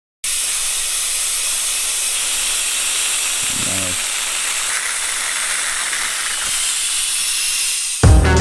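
A loud, steady hiss, brightest in the high range, with a short low pitched sound about three and a half seconds in. Music starts just before the end.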